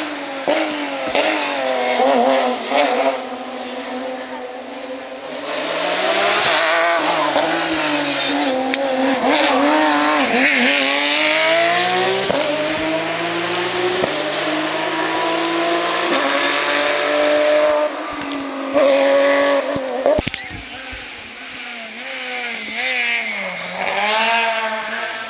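Hillclimb race cars at full throttle passing up the course, the engine note climbing and dropping repeatedly through gear changes. A few sharp cracks sound about twenty seconds in.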